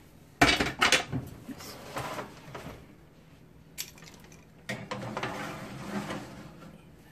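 Metal baking tray and oven wire rack clattering as the tray is set into an electric oven: loud knocks about half a second in, a sharp click near the middle, then a scraping rattle around five seconds in as the rack is pushed back.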